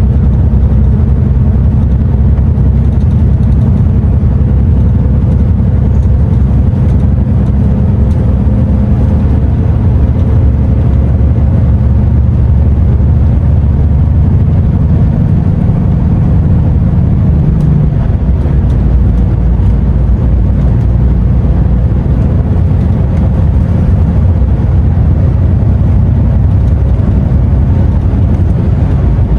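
DAF XF truck's diesel engine and road noise while driving, a steady low drone.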